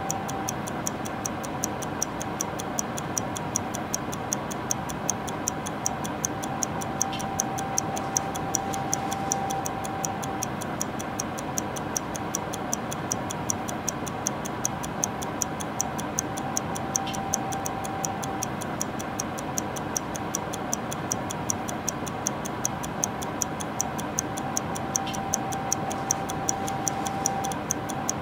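A clock ticking steadily, about two ticks a second, over a steady whirring hum with a faint whine that comes and goes.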